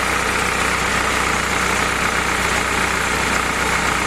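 Willys L-134 four-cylinder flathead engine running steadily on a test stand, freshly rebuilt and warming up toward operating temperature.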